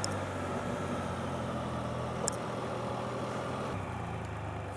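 Vehicle engine running steadily at low speed, a low even hum, with one light click about two seconds in.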